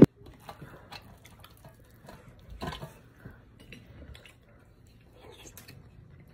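Light clinks and taps of fingers and food against a small brass cup and plate, with soft wet sounds, as food is dipped and scooped by hand. The clearest clink comes about two and a half seconds in.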